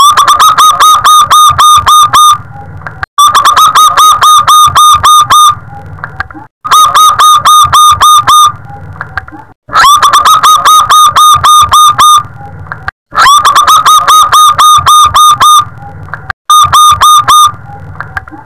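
Zebra dove (perkutut) cooing in repeated phrases, each a rapid run of short notes lasting about two seconds, with brief pauses between; six phrases, the last one shorter.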